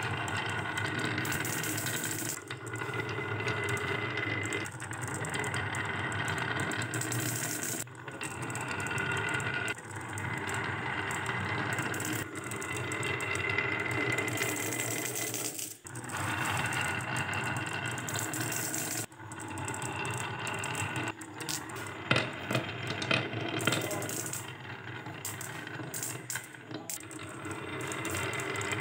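Many glass marbles rolling down a wavy groove carved in a wooden plank, a steady rolling rumble with clicks as they knock against each other and the track. It breaks off briefly every few seconds as one batch runs out and the next starts, and a few sharp clacks stand out about two-thirds of the way in.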